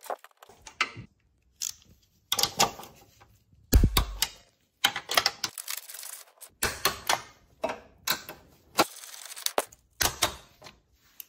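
Torque wrench ratcheting in short bursts of clicks while a front suspension bolt is tightened to 41 foot-pounds, with a heavier low knock about four seconds in.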